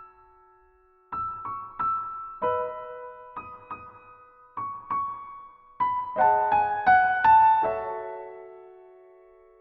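Soft piano background music: single notes and small chords struck and left to ring, starting about a second in after a brief pause, building to a fuller chord passage and then fading away near the end.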